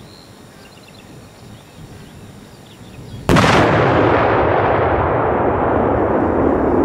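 A large firework charge explodes with a single sharp blast about three seconds in, after quiet outdoor ambience. The bang is followed by a long, loud rolling rumble whose high end slowly fades.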